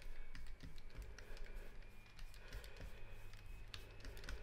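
Pastry brush dabbing and brushing egg wash onto rolled-out dough, making irregular light taps and clicks.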